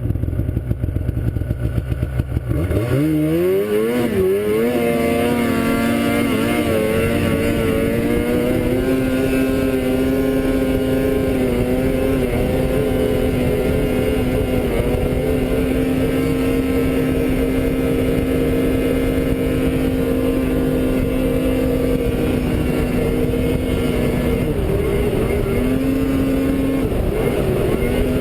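An engine running at low speed revs up about three seconds in and then holds a steady, high, even pitch, dropping briefly twice near the end.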